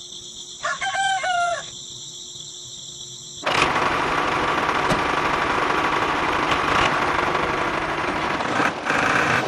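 A rooster crows once over a steady high-pitched drone. About three and a half seconds in, a loud, steady rushing running noise starts and continues.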